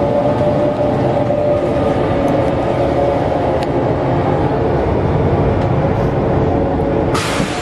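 Expedition Everest roller-coaster train running along its track: a steady, loud rumble with a humming tone over it. A short hiss comes about seven seconds in.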